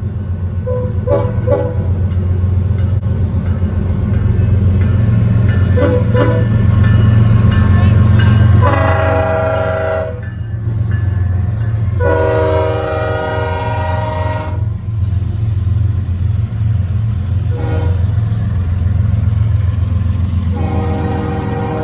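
Diesel locomotive air horn sounding a multi-note chord: a few short taps, then two longer blasts of about one and a half and two and a half seconds, and another starting near the end. Underneath runs the steady low rumble of the GE ES44AC locomotive's diesel engine and the passing train.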